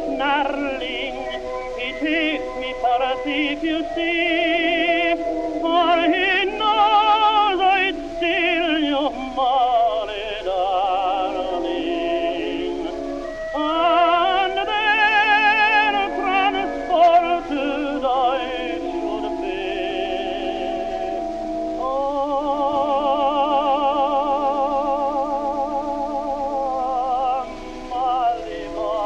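Recorded music: a lead voice singing long, held notes with heavy vibrato over a steady accompaniment.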